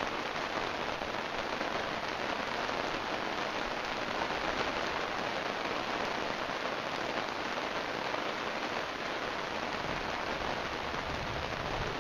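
Heavy rain falling steadily, an even hiss with no thunderclap standing out.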